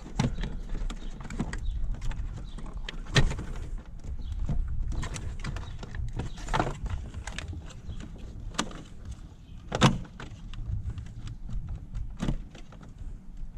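Plastic connectors and clips being pried and popped off a Corvette's fuse block: scattered sharp clicks and knocks, a second or few apart, over a low steady hum.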